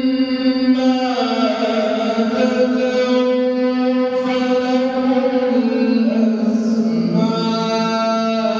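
Melodic Quran recitation: a voice chanting in long held notes that step and slide between pitches.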